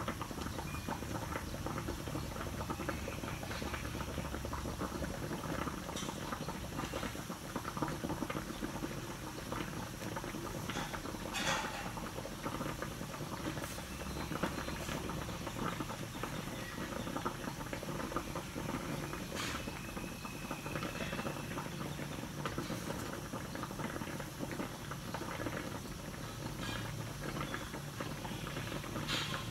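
Tocino boiling in its liquid in a wok: steady, dense bubbling and foaming, with a few sharper pops.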